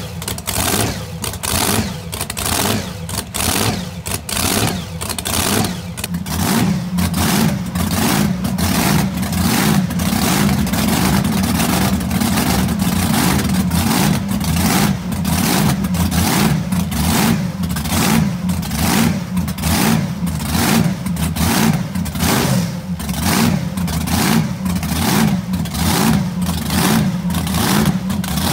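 Roots-supercharged V8 of a blown drag boat running out of the water with an uneven, loping beat. From about eight seconds in it runs faster and louder as the throttle is worked by hand at the injector.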